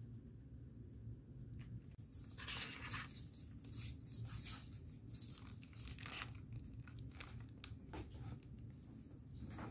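A cat crunching on small dry treats and nosing at a cardboard advent calendar box: a run of sharp crunches and crinkly scrapes that starts about two seconds in.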